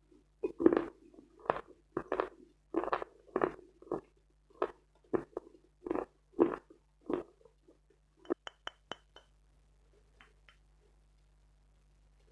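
Close-miked chewing of dense, dry Khrapovsky chalk: a regular run of crisp crunches, about two a second, that stops about two thirds of the way through, followed by a handful of short sharp clicks with a slight ring.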